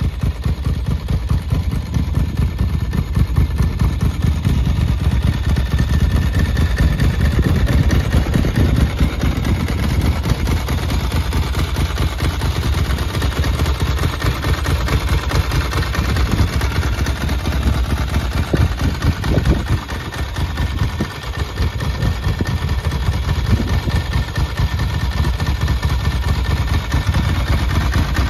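Ducati MH900e's air-cooled 904 cc L-twin idling steadily through its Termignoni exhaust, an even, rapid run of low exhaust pulses. The level briefly dips about twenty seconds in.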